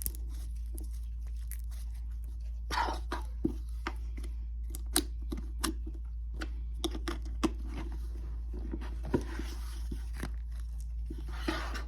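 Store-bought slime being squished and stretched by hand, a slightly sticky slime, making scattered wet pops and clicks and a couple of longer tearing stretches. A steady low hum runs underneath.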